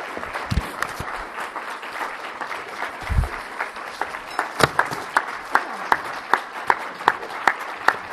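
Audience applauding. From about halfway, one person's claps close to the microphone stand out, loud and regular at two to three claps a second. Two dull thuds come near the start and about three seconds in.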